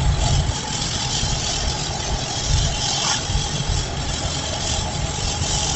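Inside a moving car in a heavy downpour: a steady rush of rain and wet road noise over a low rumble from the road and engine.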